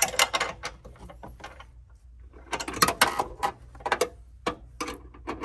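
Ratchet wrench clicking in short runs of quick clicks, with pauses between, as a seatbelt anchor bolt is run in and tightened.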